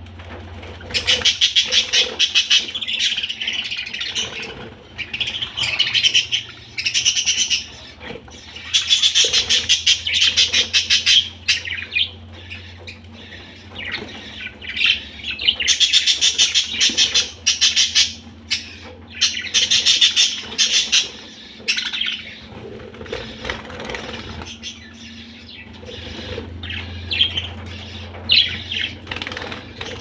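A flock of budgerigars chattering and chirping, with loud bursts of rapid chirps every few seconds and quieter warbling in between, and wings flapping as birds fly about the aviary.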